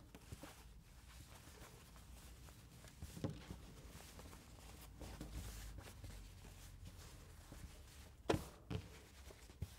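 Faint handling of cotton fabric as the lining is tucked inside a sewn fabric book cover, with a soft knock about three seconds in and a sharper knock near the end.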